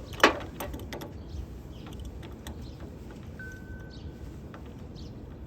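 Hand tools and parts at the car battery: one sharp clank near the start, then several light clicks and taps. A brief high tone sounds a little past three seconds in.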